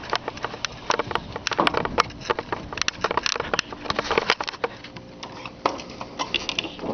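Horizontal window blind slats clattering and clicking as they are pushed aside and handled: a quick, irregular run of sharp clacks, thinning out after about five seconds.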